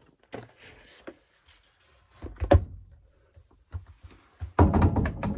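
Plastic knocks and scraping as a whole-house water filter cartridge is slid into its blue plastic housing and the housing is pushed up against the filter head. There is a louder thump about two and a half seconds in and a longer stretch of rubbing and knocking near the end.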